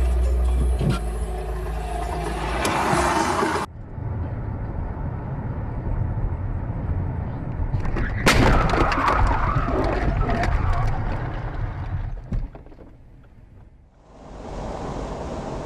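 Dashcam recording of cars on the road: steady engine and road noise, then a sudden loud crash about eight seconds in as another car strikes the camera car, followed by a few seconds of crunching and scraping. The audio cuts to quieter road noise near the end.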